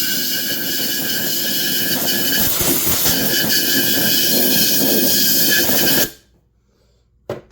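Compressed-air blow gun hissing into a McCulloch PM 700 chainsaw's fuel tank to clear out debris, with a few steady whistling tones in the hiss. It runs for about six seconds and cuts off suddenly.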